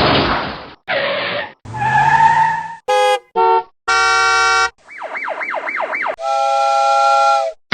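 A rapid string of separate sound effects: two short noisy bursts, a sound with a rising tone, two quick beeps, a long buzzer-like tone, a siren-like wail swinging up and down about three times a second, and a held horn-like tone.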